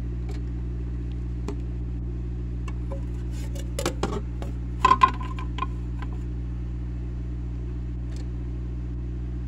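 Steady low hum with a scattered handful of short clicks and knocks, in the gap between tracks of a dub plate recording.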